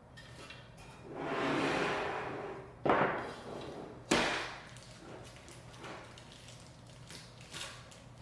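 Handling noise from working on a small computer case: a rustle or scrape lasting about a second and a half, then two sharp knocks about a second apart, followed by a few light clicks.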